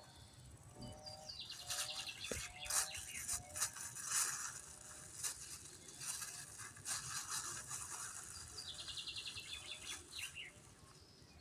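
Small birds chirping and trilling outdoors: a rapid buzzy trill about a second in and again near nine seconds, with short repeated chirps in between. Scattered sharp clicks and knocks run through it.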